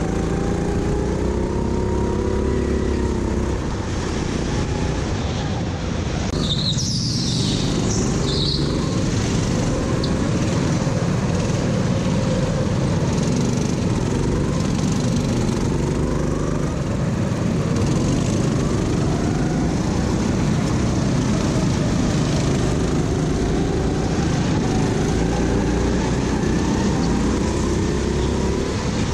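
Go-kart engine on track, its pitch rising and falling as the throttle opens and closes through the corners. A brief high squeal about seven seconds in.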